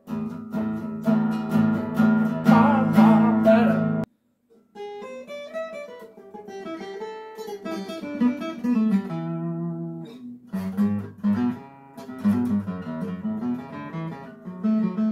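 Acoustic guitar strummed in steady chords, which cut off suddenly about four seconds in. Picked notes and chords follow, with a voice singing along without clear words in places.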